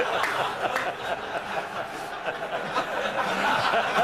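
Studio audience laughing steadily, the sound of many people together.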